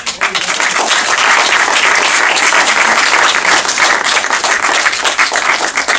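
An audience applauding: dense clapping that breaks out suddenly and keeps up at full strength.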